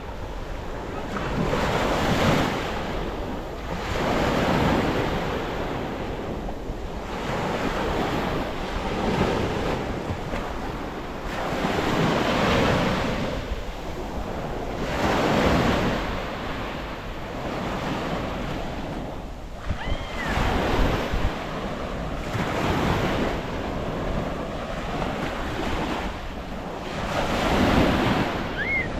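Sea waves breaking and washing in, swelling and fading every two to three seconds, with wind buffeting the microphone.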